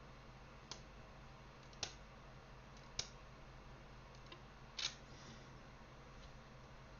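Short, sharp clicks of an aftermarket replacement home button on an iPhone 7 Plus being pressed: four of them over about four seconds, the last a quick double.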